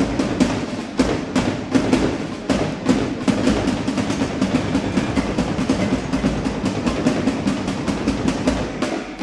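Marching drum line playing a fast, steady cadence of dense snare and bass drum strikes.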